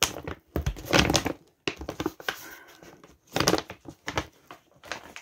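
A bag of dry dog food crinkling and rustling as it is handled, in a run of irregular bursts.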